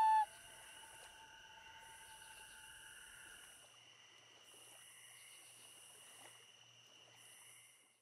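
The end of a common loon's wail: its held note breaks off just after the start and echoes faintly for about two seconds. After that comes a faint, steady high-pitched tone with a soft hiss.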